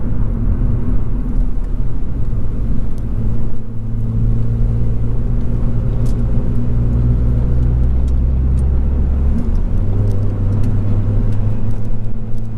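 Ford Fiesta ST 180's turbocharged 1.6-litre four-cylinder engine, with a Milltek non-resonated exhaust, running under way with road noise, heard inside the cabin. The engine note dips briefly about four seconds in and shifts pitch again near ten seconds, as gears are changed.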